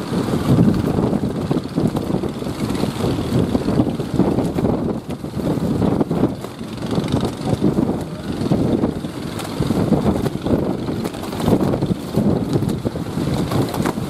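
Strong wind buffeting the microphone over the wash of surf breaking on the shore: a loud, uneven rumble that swells and dips in gusts.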